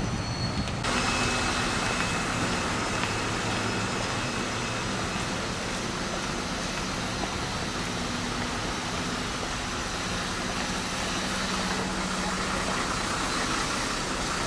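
Steady noise with the low hum of an idling motor vehicle engine under it.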